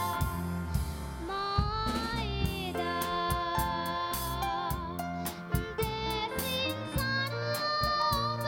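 A young girl singing a melody into a microphone, backed by a live band with keyboard, guitars and drums keeping a steady beat.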